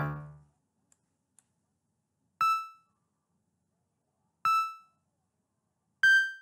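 Bright electric piano preset in FL Studio sounding three short single notes about two seconds apart, each fading quickly: note previews as notes are placed and dragged in the piano roll. The last note is a little higher than the other two, and a played-back melody dies away at the start.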